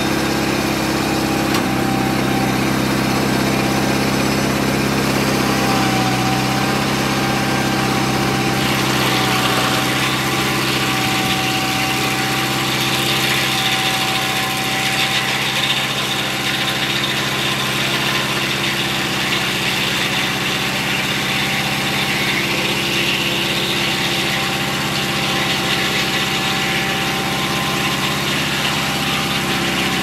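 Mobile Dimension sawmill's engine running steadily at an even speed. About nine seconds in, a hiss joins it and stays.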